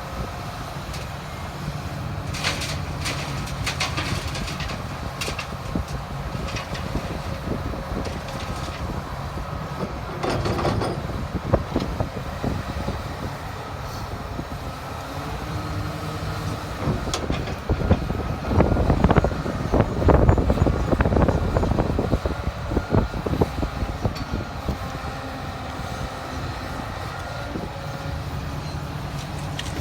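Komatsu excavator's diesel engine running steadily, with clanks and rattles and louder, rougher stretches about ten seconds in and again from about eighteen to twenty-three seconds, typical of the machine digging and loading spoil.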